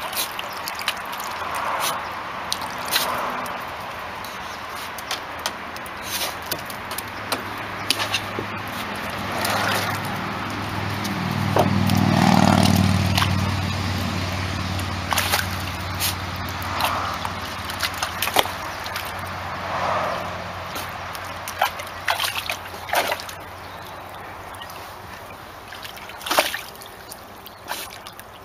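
Shallow water sloshing and trickling, broken by many short sharp splashes, as a Shiba Inu paws and snaps at the water trying to catch fish. A low hum swells and fades about halfway through.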